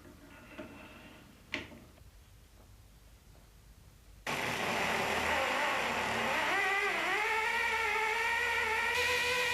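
A couple of light clicks, then about four seconds in a valve grinder's drive motor starts abruptly and runs with a steady whine. Its pitch dips briefly as it takes up the load, then settles.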